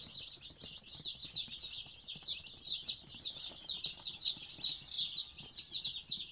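A brood of chicks peeping, many quick high-pitched peeps overlapping without a break.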